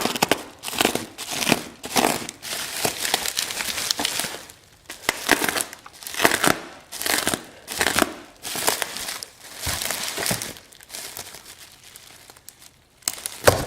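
Packing tape being cut and the package's wrapping crinkling and tearing in irregular bursts as the package is opened.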